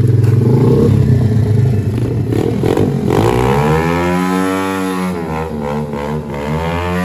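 SSR pit bike's single-cylinder engine running steadily, then revved hard about three seconds in. The pitch swells up and sinks back, then climbs again near the end, as the rider holds the bike against a wall and spins the rear wheel for a burnout.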